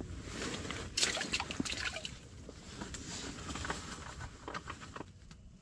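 Water splashing about a second in, then trickling and dripping with small clicks: a just-caught perch let go into water.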